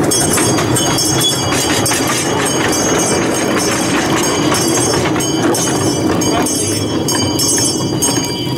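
Miniature Cagney steam locomotive and its ride-on cars running along a backyard track. A steady loud clatter of wheels and running gear is dotted with small clicks, and thin high ringing tones sit over it.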